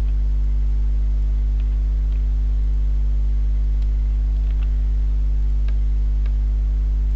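Steady electrical mains hum picked up by the microphone, a low buzz with a stack of overtones. A few faint clicks are scattered over it.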